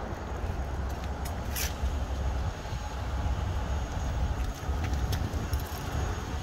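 Low, uneven rumble of road traffic mixed with wind on the microphone, with a few faint short clicks.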